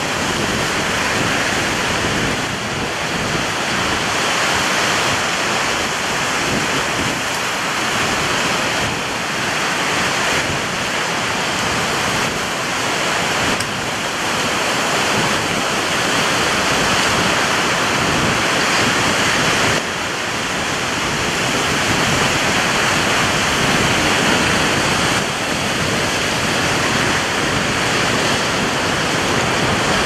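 Strong ocean surf breaking and washing onto the shore: a continuous rushing hiss that slowly swells and eases.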